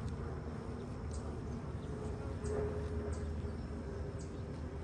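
Honeybees buzzing around an open hive: a steady low hum with a faint held tone in it, and a few brief high chirps over the top.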